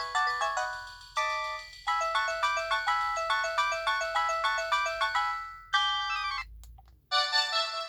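LG VX4500 flip phone playing its built-in ringtones through its small speaker: quick synthesized melodies of short stepped notes. The tune stops briefly about six and a half seconds in and a different ringtone begins.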